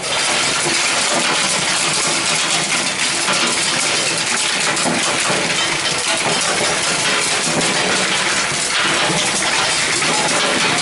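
Loose plastic bottle caps tumbling and clattering against each other and the stainless-steel hopper of a cap elevator feeding a capping machine. It is a steady, dense rattle of many small clicks.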